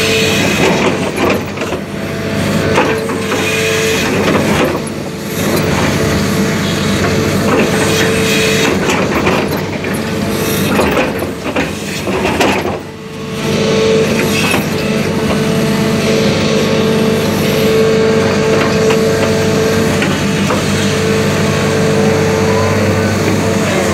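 JCB JS220LC excavator heard from inside the cab: diesel engine running under load with a steady whine, while the bucket digs into broken rock with scattered knocks and scraping. The engine sound dips briefly twice, about five and thirteen seconds in.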